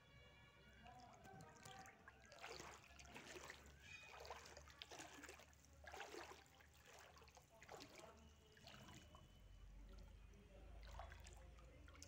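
Faint sloshing and splashing of shallow floodwater, as if waded through, a splash every half second to a second from about two seconds in.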